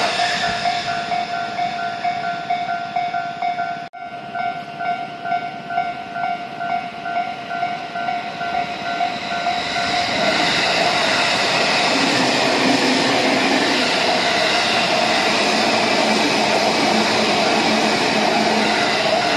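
Railway level-crossing bell ringing in a steady quick pulse, about two strikes a second, which stops about ten seconds in; an electric commuter train then runs past with a steady rumble of wheels on rail and a low hum.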